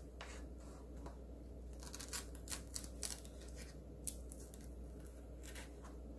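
Faint scraping and light clicks of a wooden spoon scooping seeds out of halved red and green chili peppers on a wooden cutting board, in short scattered strokes over a steady low hum.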